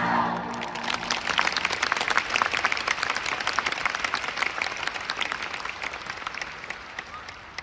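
A wind band's final chord decays away, then a large audience applauds, the clapping fading gradually toward the end.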